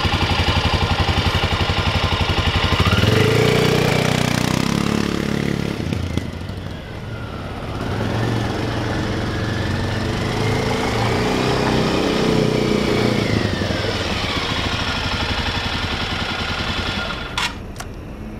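Can-Am DS 250 ATV's 250 cc four-stroke single-cylinder engine idling close up, then revving as it pulls away about three seconds in. Its note rises and falls as the quad rides off and comes back, and a sharp click sounds near the end.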